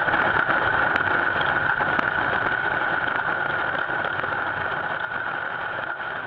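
Pulsejet engine on a snowmobile running flat out, heard from an onboard camera next to its exhaust tube: a steady, dense rush of noise with a strong high tone through it, slowly fading out.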